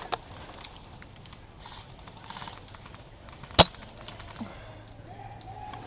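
Airsoft guns firing: scattered faint clicks and pops, with one loud, sharp crack of a close shot or hit about three and a half seconds in. A faint steady hum comes in near the end.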